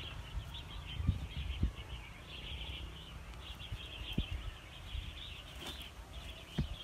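Continuous high chirping of birds in the background. A few dull low thumps come through it as slabs of wet clay are handled and set down over an earth oven.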